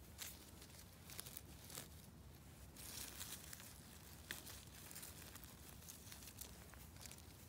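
Faint rustling and crackling of moss and dry leaves as clumps of yellowfoot mushrooms are pulled up from the forest floor by hand, with a few sharp clicks.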